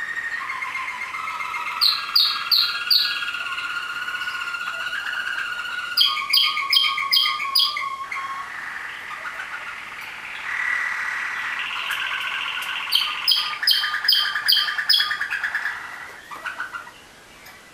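Waterslager (Malinois) song canaries singing: long rolling trills, broken three times by short runs of clear ringing notes about three a second. The song tails off near the end.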